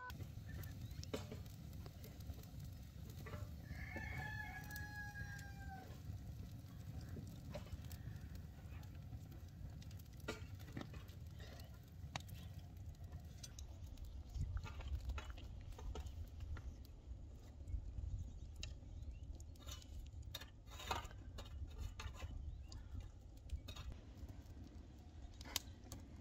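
A rooster crows once, a call of about two seconds with a slightly falling pitch, about four seconds in, over a steady low rumble. From midway on, a wood fire crackles with scattered sharp snaps.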